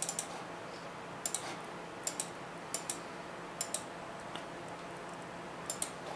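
Computer mouse button clicked about six times, each click a quick double tick of press and release, over a faint steady hum.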